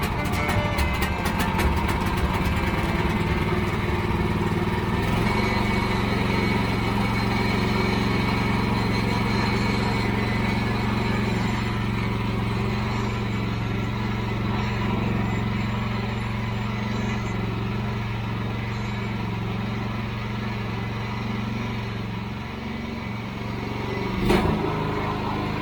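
An engine running steadily; its speed shifts and then holds about five seconds in, with a single knock near the end.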